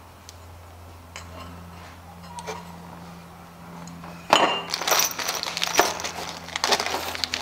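Clear plastic hardware bag crinkling and rustling loudly, with metal bolts clinking inside, starting about four seconds in. Before that there are a few light clicks of parts being handled, over a steady low hum.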